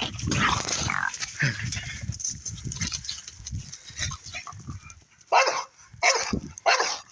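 Pit bull at a cornered raccoon, making close, rough noisy vocal sounds, then three loud barks in quick succession about five to seven seconds in.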